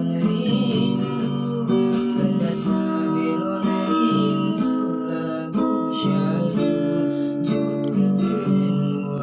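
Acoustic guitar strummed in a steady run of chords.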